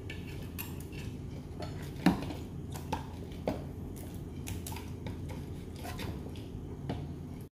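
Spoon and cutlery clinking and scraping on plates and bowls while steamed mud crab is pulled apart by hand: a run of short sharp clicks and taps, the loudest about two seconds in, over a steady low hum.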